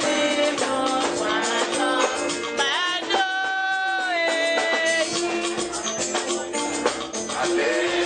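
Church choir singing with instrumental and percussion accompaniment. About three seconds in, the voices hold one long note for a couple of seconds.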